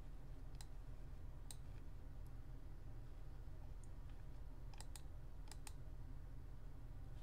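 Several sharp computer mouse clicks, some in quick pairs, over a faint steady low hum.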